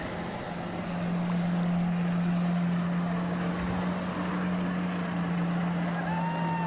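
Jet ski engine driving a flyboard, running at steady revs as a constant low drone, with the hiss of the water jets spraying beneath the rider. A short gliding tone, rising then falling, comes near the end.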